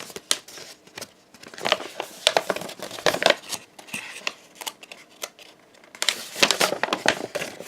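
Paper crinkling and rustling as a printed poster is handled and turned over, in irregular short bursts that grow busier near the end.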